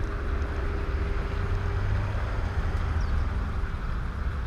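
Steady outdoor background rumble with an even hiss, and no goose calls.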